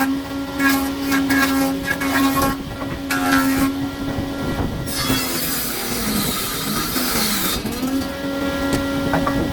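A woodworking machine's motor running with a steady hum, cutting wood in short bursts. About halfway through, a longer cut loads the motor and its pitch sags, then climbs back as the cut ends.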